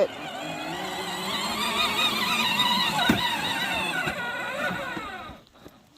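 24-volt electric ride-on toy car's motor whining as it drives uphill, with a single knock about three seconds in, then cutting out about five seconds in as the car turns off.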